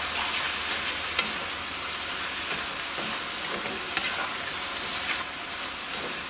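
Chicken mince and chopped vegetables sizzling in a non-stick frying pan over high heat while a black plastic slotted spatula stirs through them, with a steady hiss and a few sharp scrapes and knocks of the spatula against the pan, the clearest about a second in and about four seconds in.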